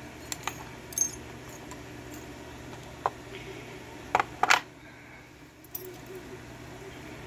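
Small metal clicks and clinks from a 5-pin pin-tumbler lock being taken apart, its parts and tools tapping on a hard surface. Scattered single clicks, with the loudest a quick run of clicks about four seconds in.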